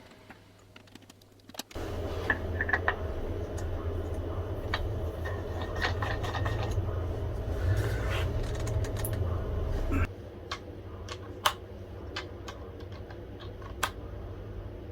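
A small motor runs steadily with a low hum and some clatter for about eight seconds, then stops suddenly, followed by scattered sharp clicks.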